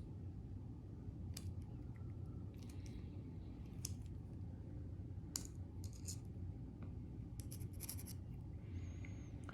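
A metal tool scraping and clicking against the plates of a laminated padlock in short, irregular strokes while they are being pried apart; the plates are not giving. A steady low hum sits underneath.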